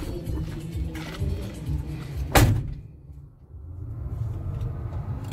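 A car door slams shut about two and a half seconds in: one loud, sharp bang over the low rumble of the stationary vehicle. Right after it the sound goes muffled and quieter for about a second, as the cabin is closed off.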